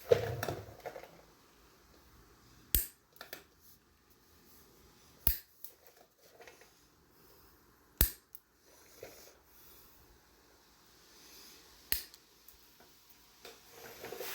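Four sharp clicks a few seconds apart, with brief handling noise at the start and a few fainter ticks between them.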